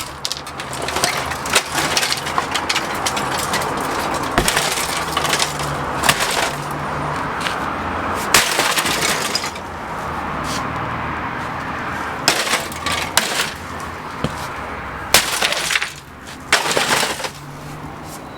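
Sledgehammer blows smashing a Canon printer's plastic housing: repeated heavy hits at uneven spacing, each with plastic cracking and breaking apart.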